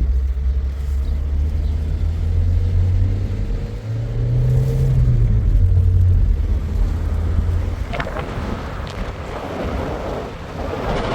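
Motor vehicle running: a steady low engine drone whose pitch rises and falls briefly about four seconds in. It fades after about eight seconds as a rushing hiss builds near the end.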